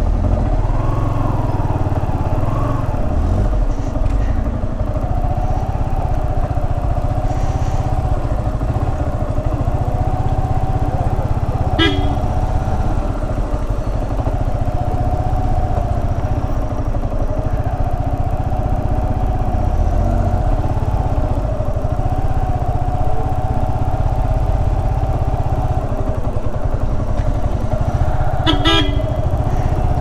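Yamaha R15's single-cylinder engine running at low speed, its note wavering as the bike creeps along. A vehicle horn sounds briefly about twelve seconds in, and a few quick horn toots come near the end.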